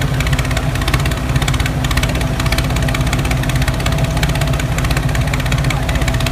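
Tractor engine idling steadily, a fast, even chugging with no change in speed.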